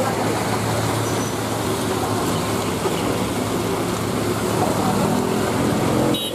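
Road traffic on a wet mountain road: car and motorcycle engines running with a steady hiss of tyres on wet asphalt. An engine note grows louder near the end.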